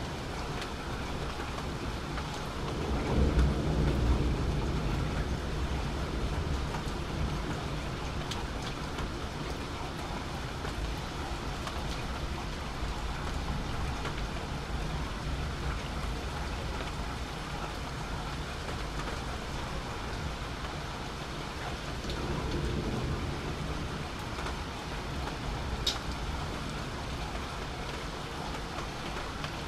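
Steady rain falling in a thunderstorm, with a low rumble of thunder swelling about three seconds in and dying away over several seconds, and a weaker rumble about two-thirds of the way through. A short sharp click near the end.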